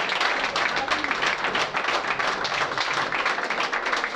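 Crowd applauding: many hands clapping at once, steady through the whole stretch.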